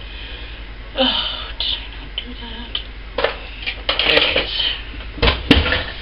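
Kitchen utensils and containers being handled: scattered clinks, taps and short rustles, with a heavier knock near the end.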